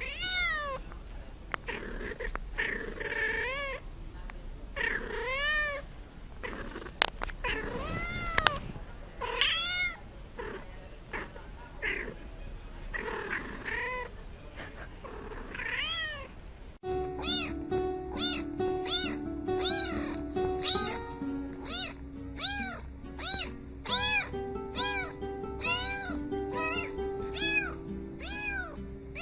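Domestic cat meowing again and again, each meow rising and then falling in pitch. About 17 s in the clip cuts to meows coming more quickly and evenly, over background music.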